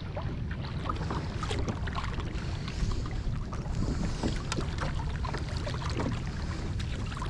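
Water lapping and splashing around a kayak on the ocean, with scattered small splashes and drips, over a low wind rumble on the microphone.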